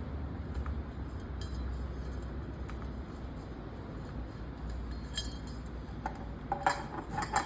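Light clinks and clicks of lamp parts being handled while the main wire is fitted into the floor lamp's stand, scattered at first and clustering into sharper, briefly ringing clinks near the end, over a low steady hum.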